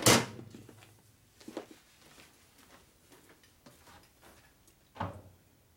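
Knocks of handling on a steel workbench: a loud clank with a short ring at the start, a few light knocks about a second and a half in, and another sharp knock about five seconds in.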